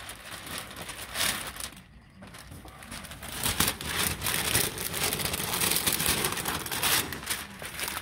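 Brown contractor masking paper rustling and crackling as it is pulled out from under a garage door and bunched up. It dips briefly, then gets louder from about three seconds in.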